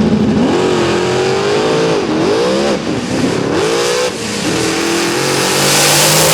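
Drag-racing engine at full throttle, climbing hard in pitch and dropping back about three times as it shifts or lifts, then holding high. A rising hiss swells near the end.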